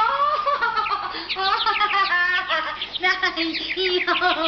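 A woman's high-pitched shrieking and squealing in quick, rising and falling bird-like cries, without words: a delirious, manic outburst.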